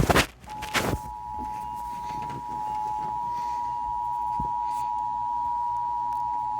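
Emergency Alert System attention signal: a steady two-note alert tone that comes in about half a second in and holds unbroken, preceded by a few loud bursts of static in the first second.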